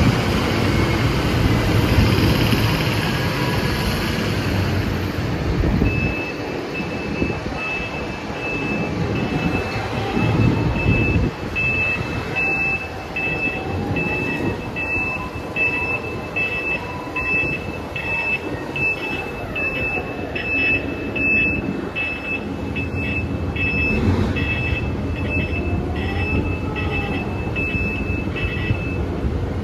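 Heavy machinery rumbling, with a vehicle reversing alarm that comes in as a high tone about six seconds in and then beeps steadily, about one and a half beeps a second. It fits a mining dump truck backing up to tip ore into the crusher.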